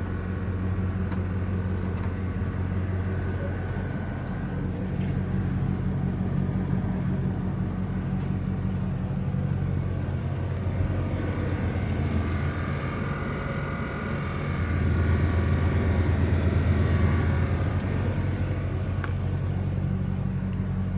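Air-suspension compressor of a 1998–99 Lincoln Navigator running with a steady low buzz, the sound of a working compressor. It swells louder for a couple of seconds about fifteen seconds in.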